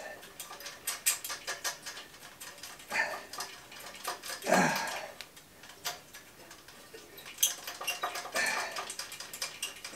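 Metal clinking and ticking of a Vespa scooter exhaust and its fittings being screwed onto the aerator's engine by hand. It comes as irregular small clicks, with a few louder clatters about one, three and four and a half seconds in.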